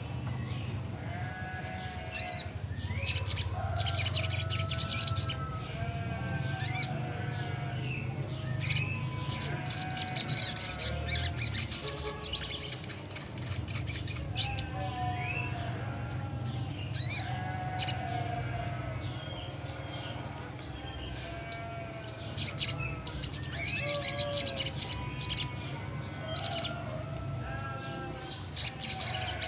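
A young sogon songbird singing continuously in varied, repeated phrases of short whistled notes and chirps, with louder bursts of sharp high chips, over a faint low steady hum.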